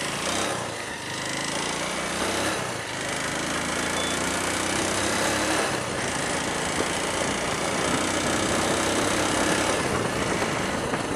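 Motorcycle engine running while riding, with steady wind noise over the microphone.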